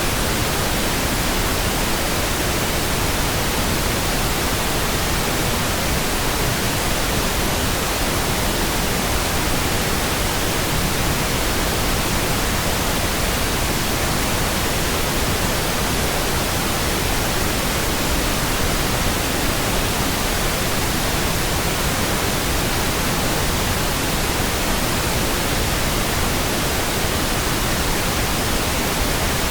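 Synthetic pink noise: a steady, even hiss spread over all pitches, with no changes or other sounds.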